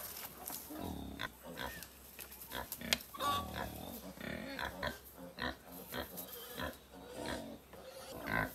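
Farm animals grunting in many short, irregular calls, one after another.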